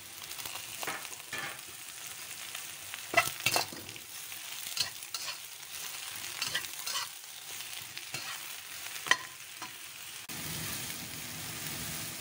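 Beech mushrooms, sliced mushrooms and carrot sizzling in hot oil with ginger in a wok as they are stir-fried, with a steady hiss. A utensil scrapes and knocks against the wok several times, sharpest about three seconds in and again about nine seconds in. The sizzle grows fuller near the end.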